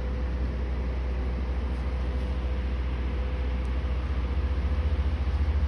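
A steady low rumble with a faint steady hum above it; about four seconds in, the rumble begins to pulse rapidly and grows louder.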